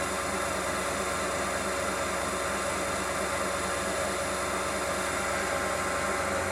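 Wood lathe running steadily at high speed, a constant whir and hum, while a turned pen blank is polished on it.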